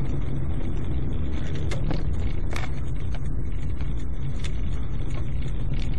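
Steady low rumble of a moving car's engine and tyres, heard from inside the cabin, with a few faint clicks.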